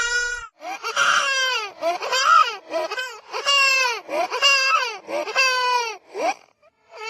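Small child crying hard: a run of about seven wailing sobs in quick succession, each sliding down in pitch, with a short pause near the end.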